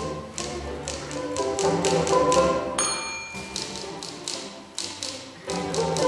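Typewriter keys clacking in rapid runs over a string orchestra, with a bell dinging once about three seconds in.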